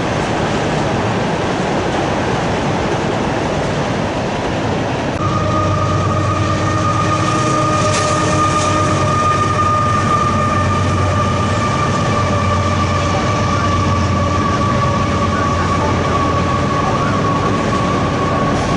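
Freight train of autorack cars rolling past, a steady rumble and clatter of wheels on rail. About five seconds in, a steady high-pitched squeal starts and holds to the end.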